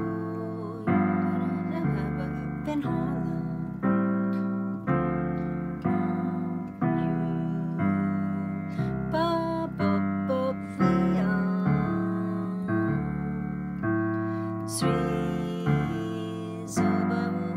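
Digital piano playing jazz chords in a swing accompaniment, with roots and fifths in the left hand under third-and-seventh voicings in the right. A new chord is struck about once a second and rings until the next.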